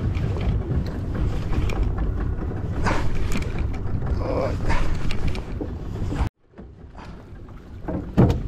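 Steady low rumble of wind and boat noise on a small fishing boat at sea, with scattered faint clicks. It cuts off abruptly about six seconds in, and a much quieter stretch follows before a louder sound near the end.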